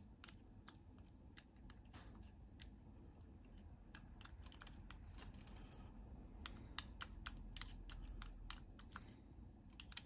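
Faint, irregular small clicks and taps of a screwdriver and fingers working the plastic housing and metal contact piece of an Amstrad CPC464 power switch back into place.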